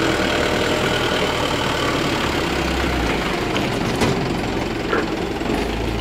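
Diesel engine of a Mitsubishi Fuso light truck running as the loaded truck pulls away and turns onto the road, with a single sharp knock about four seconds in.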